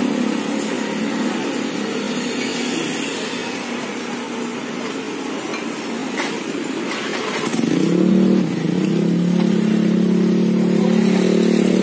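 A motor vehicle engine runs steadily. Its pitch rises about eight seconds in as it revs, then it holds louder. A couple of sharp clicks come around six and seven seconds in, like a spoon against a porcelain bowl.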